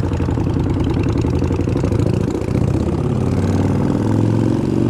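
Harley-Davidson Sportster Iron 883's air-cooled V-twin engine running at low revs, its pitch dipping and rising about two seconds in, then settling to a steady idle.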